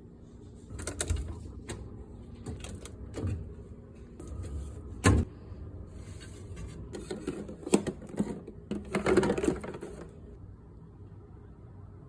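Irregular clatter of items being handled in and around a fridge: clicks and knocks of containers and shelves, with a sharp knock about five seconds in, another near eight seconds, and a burst of rustling just after nine seconds.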